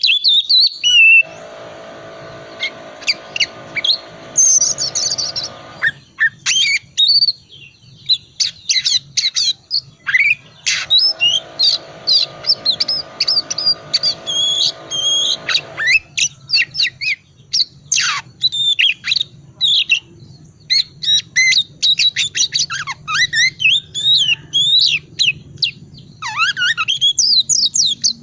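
Oriental magpie-robin (kacer) singing a fast, chattering run of varied chirps, twitters and short whistled glides. Twice, about a second in and again around the middle, a long, even buzz lasting several seconds runs under the song.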